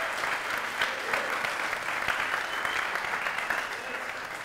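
Congregation applauding, the clapping slowly dying away towards the end.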